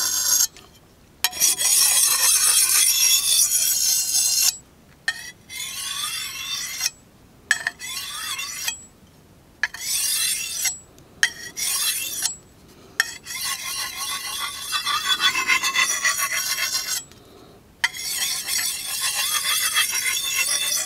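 Steel machete blade scraped along a flat hand-held natural stone used as a whetstone: a run of gritty scraping strokes of varying length, broken by short pauses.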